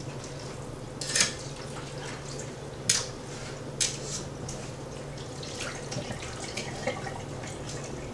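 Water dripping in a stainless-steel sink while wet beef tripe is handled in a metal bowl. A few sharp clicks of metal tongs and a knife against the bowl come about one, three and four seconds in, over a low steady hum.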